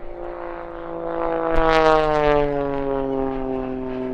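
Extra 330SC aerobatic monoplane's six-cylinder Lycoming engine and propeller flying past, loudest just under two seconds in, with the pitch dropping steadily as the aircraft moves away.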